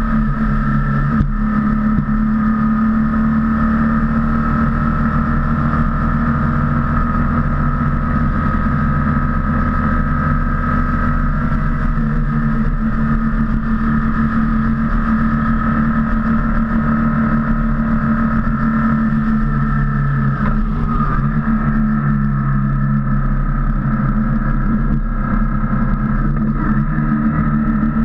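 BMW R1200C motorcycle's boxer twin engine running at a steady cruising speed, a constant drone.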